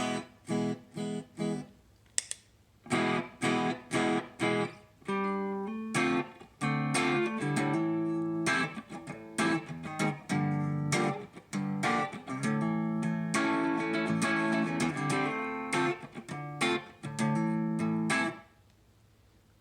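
Electric guitar (a Gretsch Electromatic) played through a compressor pedal into a tube amp's clean channel: short chord stabs at first, then longer strummed chords and ringing notes, stopping shortly before the end. With the release turned up, the compressor holds the notes at an even level no matter how hard they are picked.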